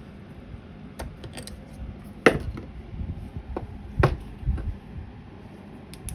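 Scattered clicks and knocks of hard parts being handled as a plastic foot valve is screwed onto a brass fitting, the loudest knock a little over two seconds in and another near four seconds.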